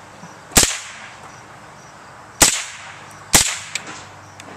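Three rifle shots from a scoped semi-automatic rifle, each a sharp crack with a brief echo, coming about half a second, two and a half seconds and three and a half seconds in. The last two come less than a second apart, and a fainter click follows just after the last.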